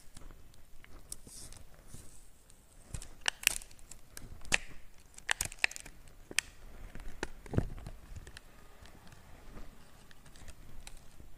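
Packaging of a USB flash-drive voice recorder being opened by hand: scattered sharp clicks and taps with short bursts of crinkling.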